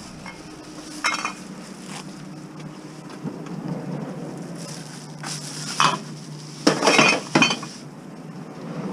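Glass bottles in a paper bag clinking against each other as the bag is picked up and carried. There is a sharp clink about a second in, a few more around five to six seconds, and a quick run of clinks near seven seconds.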